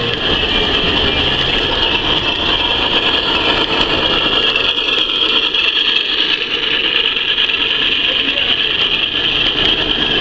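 Large-scale model train rolling along its track, heard from a camera riding on the train: a steady rumble and rattle of wheels on rail with a high-pitched whine.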